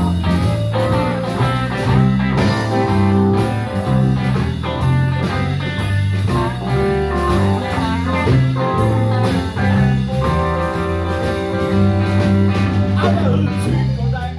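A live blues band playing: electric guitars over electric bass, keyboard and a drum kit keeping a steady beat.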